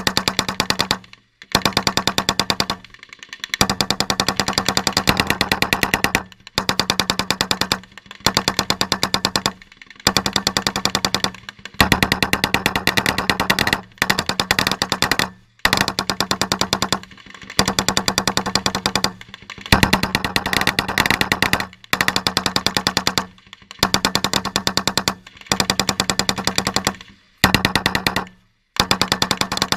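Machine guns firing in rapid bursts of about one to two seconds, separated by short pauses, over and over: sustained automatic fire from prone firing positions.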